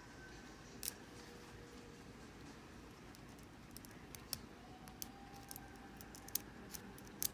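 Small metallic clicks and ticks of a lock pick and tension wrench working the pin tumblers inside a Brinks solid-brass padlock: a single click about a second in, then a scattered run of clicks in the second half.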